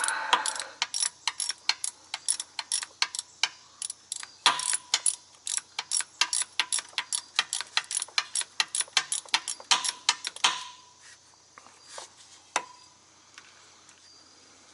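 Ratchet wrench clicking quickly and evenly, about four clicks a second, as the wire terminal nuts come off a truck starter. The clicking stops about two-thirds of the way through, with a few louder metal clinks and scattered clicks after it.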